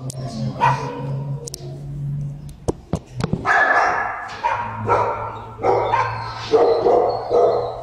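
Shelter dogs barking repeatedly in a kennel block, the barks coming in a close run from about three and a half seconds in. A steady low hum runs underneath, and a few sharp clicks come just before the barking.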